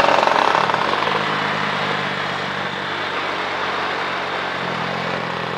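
Motorcycle engines: a loud engine sound fades away over the first second or two, then engines run steadily at a low, even hum.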